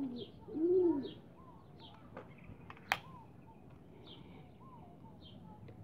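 Pigeons cooing overhead: two loud, low coos in the first second, then softer calls, with high chirps repeating every half second or so. A single sharp click about three seconds in.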